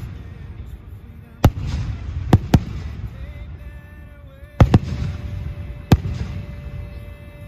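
Aerial fireworks bursting: about six sharp bangs, some in quick pairs, with a low rumble rolling on between them.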